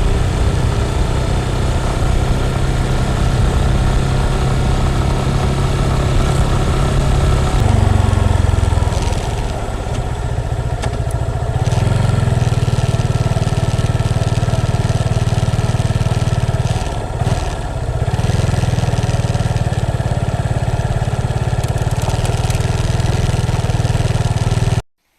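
Motorcycle engine running steadily, its pitch shifting a few times and dipping briefly about two-thirds through; it cuts off suddenly at the very end.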